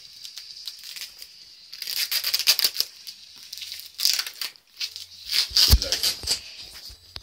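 Wrapping paper and tape on a cardboard box being torn and crinkled in irregular bursts, with a dull thump a little before the end.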